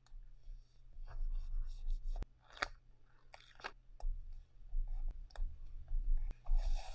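Paper stickers handled with metal tweezers and pressed onto a journal page with the fingertips: soft paper crinkles and rustles, with a few sharp clicks and taps.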